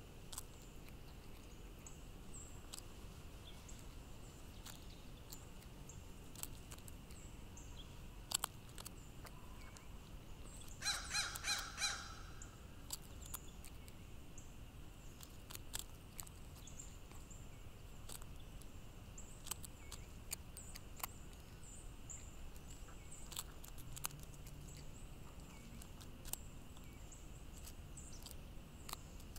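Crow foraging on gravel: scattered sharp clicks and taps of its beak pecking at peanuts and stones, with a quick run of about four loud caws about eleven seconds in.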